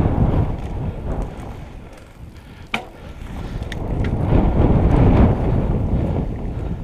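Mountain bike descending a wet, muddy dirt trail: wind buffets the microphone over the rumble and rattle of the tyres and bike. There is a single sharp click about three seconds in, and the rushing noise grows louder from about four seconds in.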